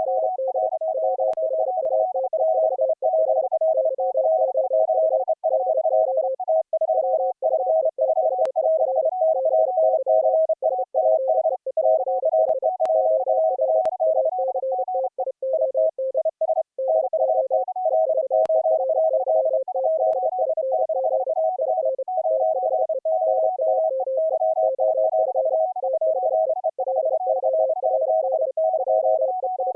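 Morse code (CW) audio from three operators sending at once, each on its own steady tone pitch, keyed on and off rapidly so the three streams of dots and dashes overlap in full duplex, heard as a mixed Opus audio-over-IP stream.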